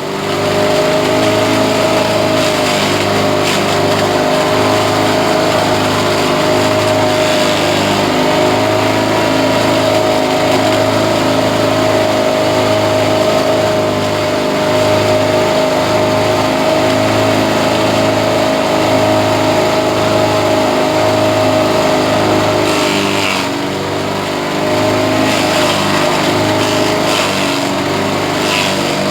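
Engine-driven grass chopper machine running steadily, with a low pulse about once a second. The sound dips slightly for a moment near the end.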